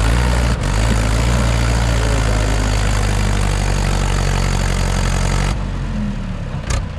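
Mahindra 585 DI XP Plus tractor's four-cylinder diesel engine running hard and steady under load as its rear wheels spin in soft sand. A loud rushing hiss lies over it until about five and a half seconds in, then drops away while the engine keeps running.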